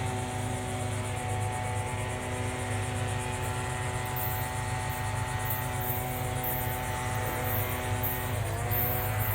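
A steady engine drone with several held tones that sag briefly in pitch near the end and then recover. A faint pulsing high hiss comes in partway through.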